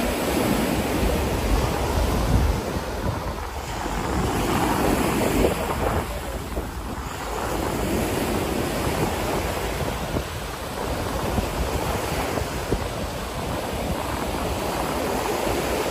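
Ocean surf washing onto a beach, the noise swelling and easing every few seconds, with wind rumbling on the microphone, heaviest in the first couple of seconds.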